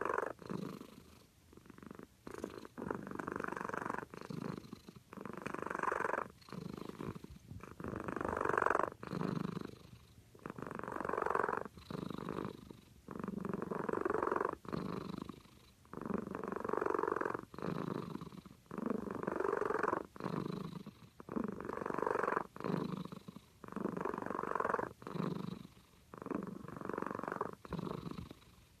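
Cat snoring in its sleep: a noisy rasp on each breath in and out, repeating evenly about every two and a half seconds.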